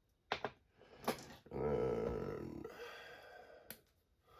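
A few sharp clicks from small parts being handled, and about a second and a half in, a drawn-out wordless vocal sound from a person, a low burp-like groan.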